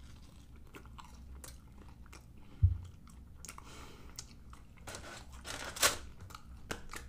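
A person chewing a mouthful of Philly cheesesteak in a crisp pita wrap, with small crunches and wet mouth clicks. There is a single dull thump about two and a half seconds in, and a louder burst of crunching or breath near six seconds.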